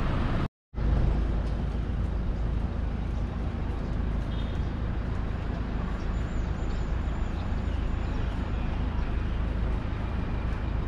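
Steady low outdoor rumble, strongest in the deep bass, with a brief dropout to silence about half a second in.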